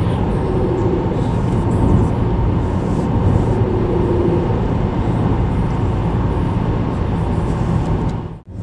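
Steady road and engine noise of a car driving at speed, heard from inside the cabin. The noise drops out suddenly for a moment near the end.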